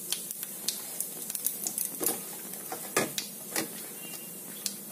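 Cumin seeds and dried red chilli sizzling in hot oil in a kadai: a steady hiss with fine crackling, and a few louder ticks around the middle.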